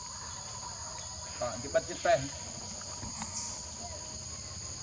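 Steady high-pitched insect chorus, a continuous two-toned buzzing drone, with a few brief pitched calls and clicks about a second and a half in.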